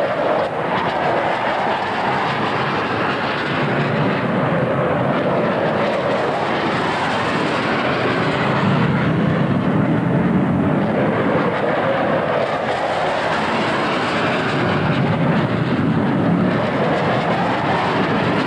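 F-4 Phantom fighter jet flying past, its engines a steady, loud rushing noise that swells and eases as it passes.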